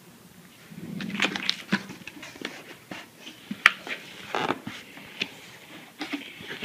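Cardboard box and packaging being opened and handled: irregular rustling, crinkling and scraping with sharp little clicks and knocks.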